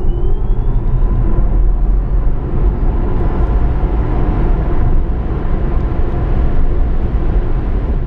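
Cinematic intro sound effect for a logo animation: a deep, heavy rumble with a rising whoosh of sweeping tones that climbs over the first second and then holds steady.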